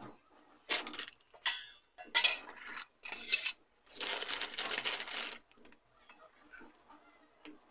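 Kitchen handling noise: several bursts of rustling and clatter, the longest lasting over a second, as bread slices are handled among steel plates and a plastic bread packet.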